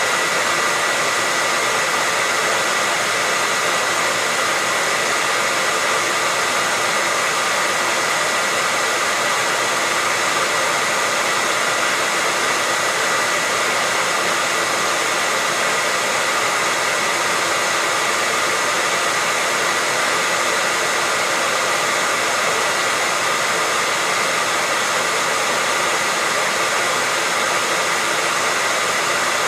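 Hair dryer running continuously at a constant setting: an even rush of blown air with a thin, steady high whine on top, unchanging throughout.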